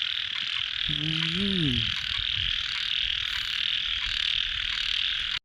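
A dense, steady chorus of frogs calling, with a short call from a person's voice about a second in. The chorus cuts off abruptly at the end.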